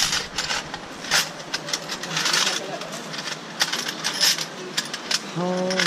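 Metal bangles clinking against each other and the steel tray as a handful is sorted through by hand, in an irregular string of bright clinks.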